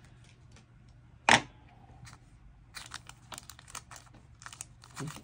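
Plastic packaging and a stack of photocards being handled: one sharp click about a second in, then a run of light clicks and crinkles as the cards are taken out and shuffled in the hands.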